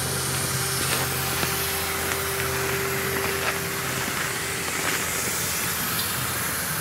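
Can-Am Outlander ATV on Camoplast Tatou 4S track kits, its engine running with a steady hum under a hiss.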